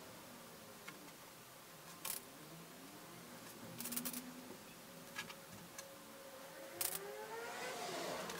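Scattered light clicks and taps as pink stretch fabric is pinned by hand on a wooden worktable, then a rustle as the fabric is lifted and flipped near the end.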